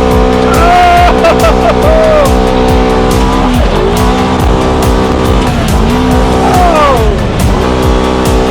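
Car engine running hard at high revs, its pitch dropping and climbing back sharply about three and a half seconds in and again near the end as the driver lifts and gets back on the throttle. Background music with a steady beat plays over it.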